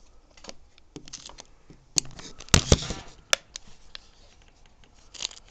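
Handling noise of a handheld weather radio: scattered clicks and knocks as it is handled and its buttons pressed, with a few sharper clicks in the middle.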